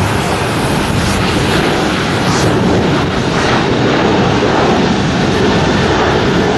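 Jet airliner engines running, a steady, loud rush of noise with no clear pitch.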